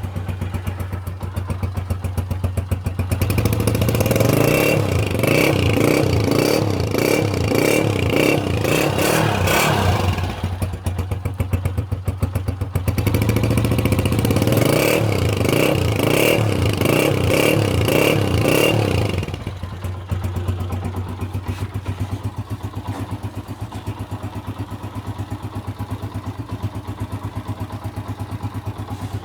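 Honda CG125's single-cylinder four-stroke engine exhaling through a KYH silencer: idling, then revved in repeated throttle blips for about seven seconds, easing back briefly, revved again for about six seconds, then settling to a steady idle for the last ten seconds.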